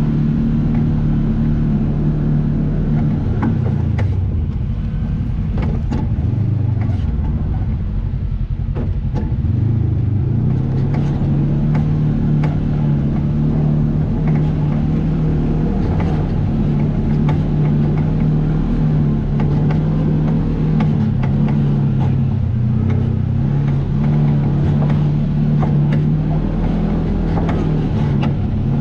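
Off-road vehicle engine running steadily on a trail ride, its pitch dropping and climbing again a few seconds in as the throttle changes, with scattered knocks and rattles from the rough ground.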